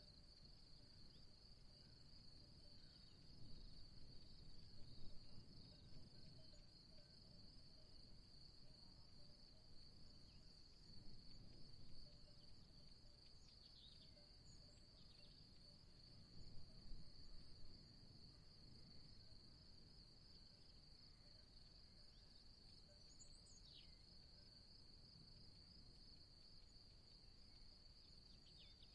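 Faint, steady high chirring of insects such as crickets, over a low wind rumble that swells a few times. A few short, high bird chirps come through, one about halfway and one near the end.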